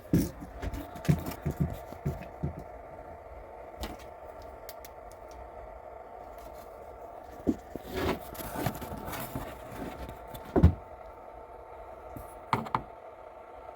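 Handling noise: scattered light knocks, clicks and scrapes over a steady background hum, busiest at the start and again about two-thirds of the way in, with one louder thump near the end.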